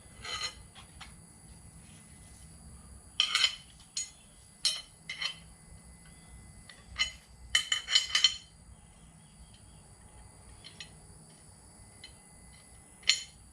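Metal tire-changing tools clinking and knocking as they are handled against a motorcycle wheel: scattered sharp metallic clinks, with a quick cluster of them about eight seconds in.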